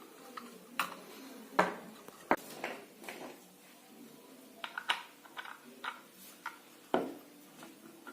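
Irregular clicks, taps and knocks of small hard objects being handled and set down, the loudest knocks about a second and a half in, just after two seconds, and near the end.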